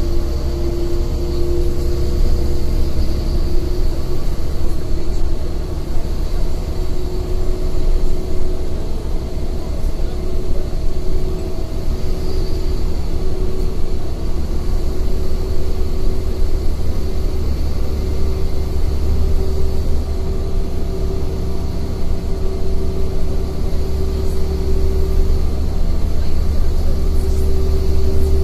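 City bus running at steady speed, heard from inside the passenger cabin: a loud low drone of engine and road noise, with a steady whine on top that drifts slightly in pitch.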